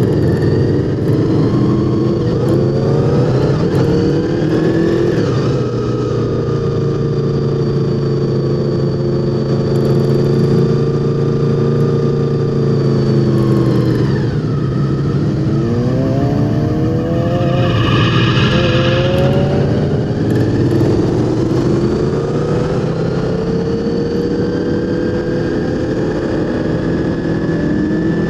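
Honda VFR800's V4 engine running under way, heard from on the bike: steady for a while, easing off twice in the first half, then revving up in a few rising pulls through the gears in the second half.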